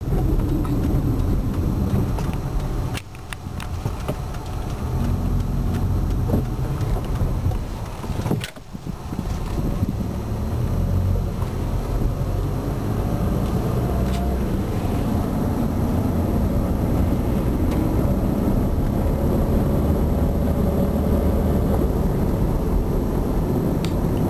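Car driving, heard from inside the cabin: a steady rumble of engine and tyre road noise, which drops away briefly twice, about three and eight and a half seconds in.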